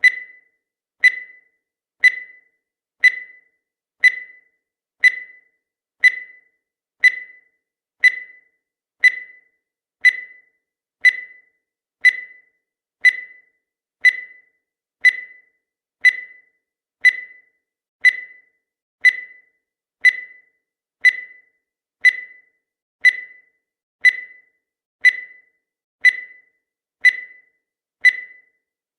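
Countdown timer sound effect: a short high beep once every second, each fading away quickly, keeping perfectly even time.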